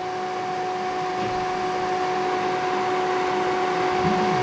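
A steady hum of two pitched tones over a hiss, slowly growing louder, with no bass yet.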